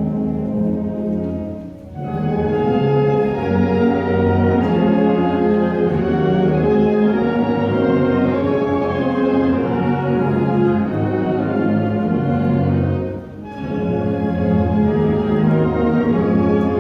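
Orchestral music with bowed strings and brass playing sustained chords, briefly dropping away about two seconds in and again near the end before resuming.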